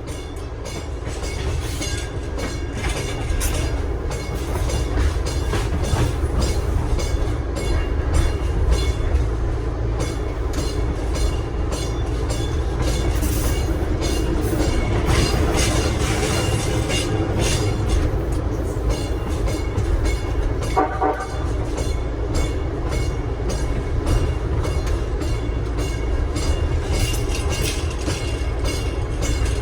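Nippon Sharyo P865 light rail car running along the track, its wheels clicking over rail joints, the noise building over the first few seconds. A brief tone sounds about two-thirds of the way through.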